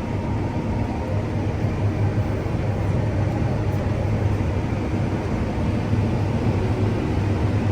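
Combine harvester running steadily while picking corn with its corn head: a constant low hum with an even machinery noise over it.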